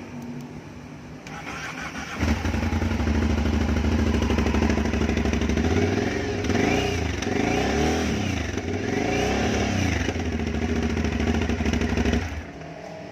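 Aprilia Shiver 900's V-twin engine on its stock exhaust: it catches about two seconds in and idles, is revved up and back down three times in the middle, and cuts off suddenly near the end.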